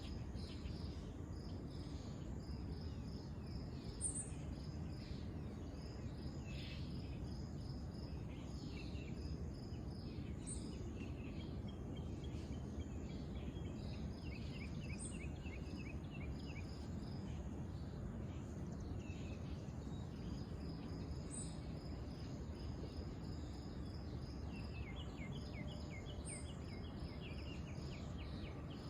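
Insects chirping in rapid pulsed trains over a steady low background rumble, with a short high-pitched note repeating about every five to six seconds.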